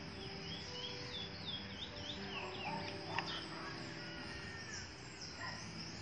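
Outdoor garden ambience: a steady high insect drone, with a bird chirping in a quick series of short calls during the first half and a faint click about three seconds in.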